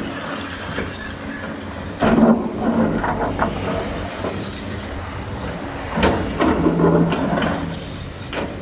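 Excavator's diesel engine running as the machine works, growing louder under load about two seconds in and again about six seconds in.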